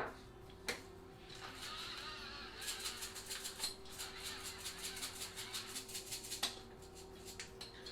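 Battery-powered electric salt grinder running for about five seconds, grinding salt with a fast crackle, a click at the start and a click as it stops; its batteries are running low.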